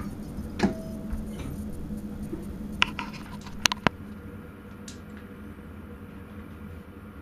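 Inside a Sprinter train's driver's cab: a steady electrical hum with a few sharp clicks, one about half a second in and three more between roughly three and four seconds in. A high hiss cuts off just before four seconds in.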